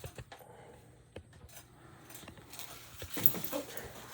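Faint handling noise: a few light clicks and taps, with a louder rustle about three seconds in.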